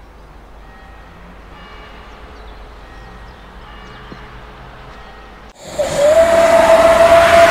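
Faint steady background noise, then about five and a half seconds in a sudden loud steam whistle blows one steady note over a rush of hissing steam. The note slides up slightly as it starts. It is a steam-engine whistle used as a sound effect for the channel's end logo.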